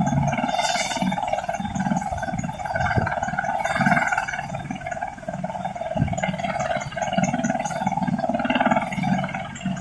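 Helicopter rotors and engine running, a steady drone with a slow rise and fall in its low end.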